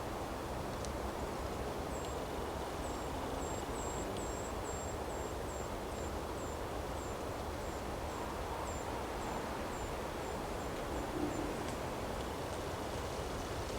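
Wind rushing steadily through forest trees. Over it, a small bird repeats a thin, very high note two or three times a second for about nine seconds, then stops.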